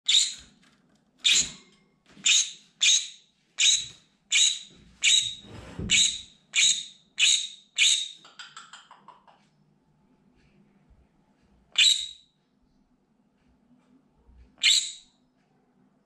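Green-cheeked conure screaming: a run of about eleven loud screams, roughly one and a half a second, trailing off into softer, shorter calls, then two more single screams after a pause.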